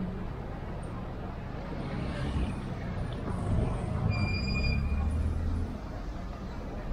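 A motor vehicle passing along a city street: a low engine rumble that builds from about two seconds in and fades near the end, with a brief high-pitched squeal about four seconds in.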